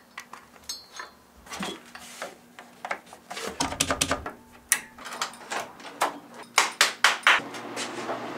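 Power cables and plugs being handled and pushed into a device's socket and a power strip: a string of irregular small clicks and knocks, with a brief low rumble about halfway through.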